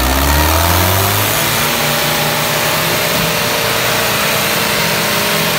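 Mahindra Arjun tractor diesel engine revving up over the first second or so, then holding steady at high revs under full load as it pulls in a tractor tug-of-war, with black smoke pouring from the exhaust.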